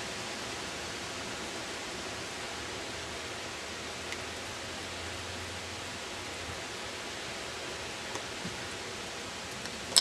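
Steady, even hiss of a snowstorm, with a few faint ticks and one sharp click at the very end.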